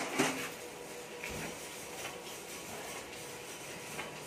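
Handling noise: a leather welding apron rubbing and shifting, with a short sharp clink about a quarter second in, over a faint steady hum.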